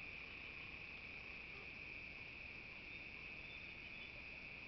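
Faint, steady high-pitched insect chorus, a continuous even trill like crickets, with no breaks.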